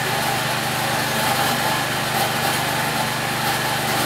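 A small engine running steadily, an even, unbroken drone.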